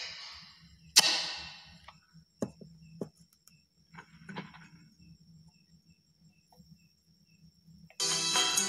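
Handling knocks from a small loudspeaker being moved and set down on a workbench: two loud thumps that ring out in the first second or so, then a few lighter clicks, over a faint steady high whine. Music starts playing near the end.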